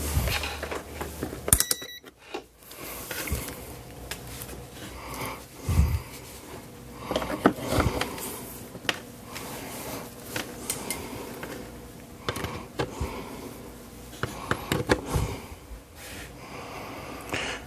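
Scattered clicks and light knocks of electronic test gear being handled on a workbench while it is connected for a frequency test. Near the start a low hum cuts off with a click.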